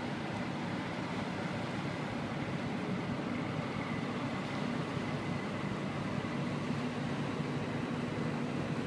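Tugboat's diesel engine running steadily as it tows a concrete bridge pontoon: an even, low drone with a constant hum.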